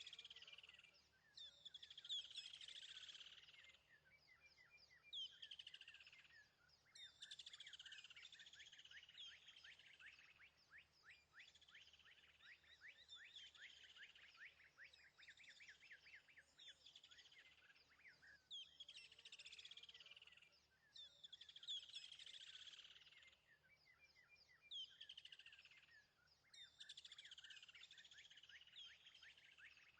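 Faint birdsong: chirps and quick descending trills that repeat every second or two.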